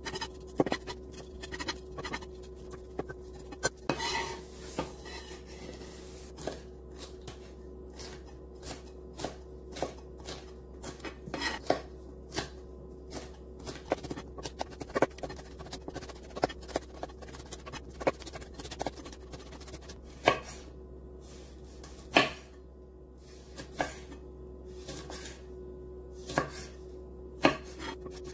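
Chef's knife slicing green hot peppers and red chili peppers on a wooden cutting board: irregular taps of the blade on the board, some much louder than others, over a faint steady hum.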